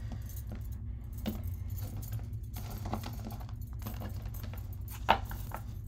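A deck of tarot cards being shuffled and handled, with metal bangles on the wrist clinking against each other and the cards, over a steady low hum. A sharper tap comes about five seconds in.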